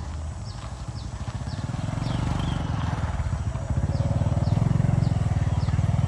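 Diesel train engine running with a fast, even throb, growing louder about two seconds in, with short repeated bird chirps above it.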